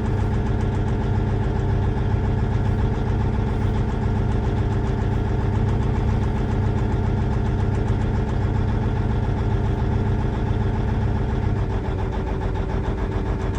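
Cummins N14 diesel in a Versatile 2360 tractor idling rough and shaking while the scan tool cuts out one cylinder's injector in a cylinder cutout test; cutting that cylinder makes it run worse, the sign of a healthy injector on that cylinder. The engine note shifts slightly near the end.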